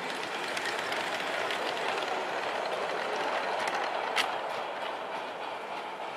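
LGB G-scale model train running on its track: a steady rolling hum from the motor and wheels with light clickety-clack over the rail joints, and one brief sharp click about four seconds in.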